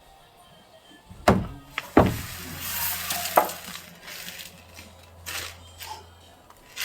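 A few sharp knocks and clatters, about 1.3, 2 and 3.4 seconds in, with a hissing rush in the middle and a low steady hum that starts about two seconds in.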